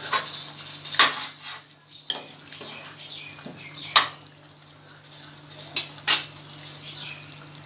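A spoon stirring curry in a cooking pan, knocking against the pan in several sharp clinks, the loudest about a second in and about four seconds in, over a soft scraping and bubbling of the wet curry.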